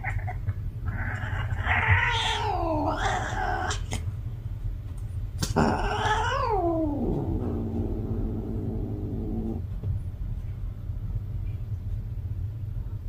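Domestic cat caterwauling, the mating call of a female cat in heat: a short call, then a long wavering yowl of about three seconds, then a second yowl that falls in pitch and trails into a low, steady moan before stopping.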